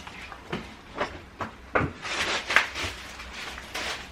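Packaging being handled: a few light knocks against a box, then crinkling and rustling, loudest about two and a half seconds in.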